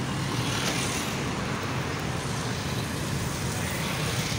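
Steady road traffic noise from cars and motorcycles passing on a busy city road.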